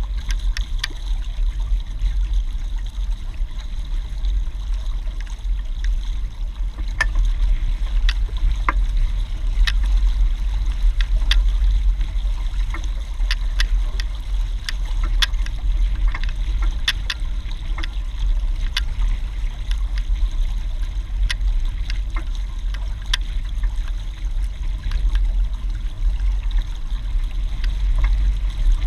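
Water rushing and trickling along a Hobie 16 catamaran's hull under sail, with frequent small splashes and drips, over a steady low rumble of wind on the microphone.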